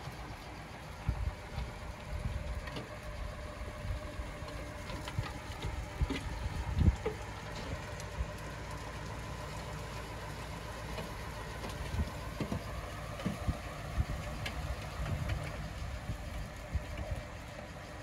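Diesel engine of heavy earthmoving machinery running steadily, with scattered knocks and clanks; the loudest knock comes about seven seconds in.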